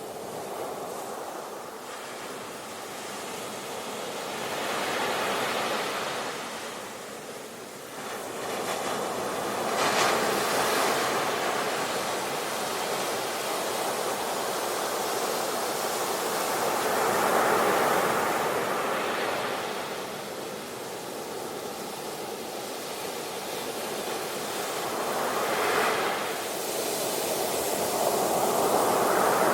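Ocean waves breaking and washing on a shore, a steady hiss of surf that swells and falls back every few seconds, with stronger surges about a third of the way in, just past halfway, and near the end.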